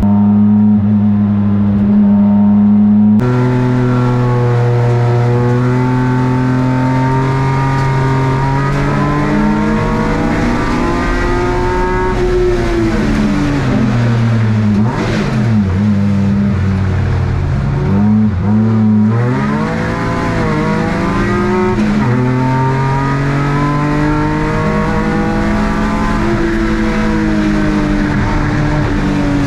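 BMW E36 race car's swapped-in S54 straight-six running hard on track, the engine note climbing and falling as it pulls through the gears, with two sharp drops in pitch near the middle as it comes off the throttle and downshifts before building again.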